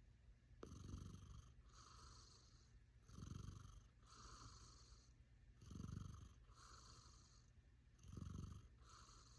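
A pet cat snoring softly in its sleep: four slow breaths about two and a half seconds apart, each a low snore with a fainter, higher hiss between snores.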